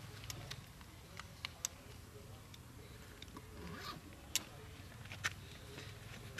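Newborn macaque suckling at its mother's nipple: scattered sharp irregular clicks over a low steady rumble.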